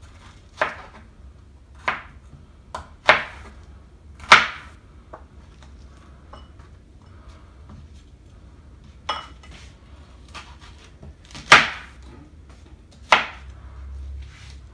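Chef's knife slicing through a red onion and knocking down onto a plastic cutting board: about eight separate, sharp strokes at an uneven pace, several seconds apart in the middle, over a low steady hum.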